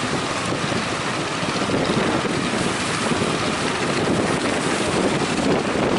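Strong wind buffeting the microphone over the steady rush of breaking waves.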